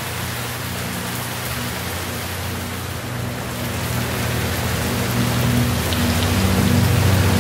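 Steady rain falling, an even hiss of drops with a low rumble beneath it, growing louder through the second half.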